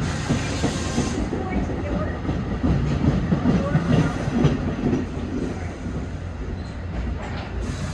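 Passenger train passing, its wheels rumbling and clattering over the rails, loudest about three to four and a half seconds in.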